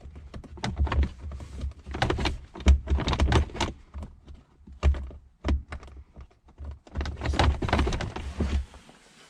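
Irregular clicks, knocks and light rattles of bolts being pulled up and out and plastic console trim being handled, with short dull bumps in between.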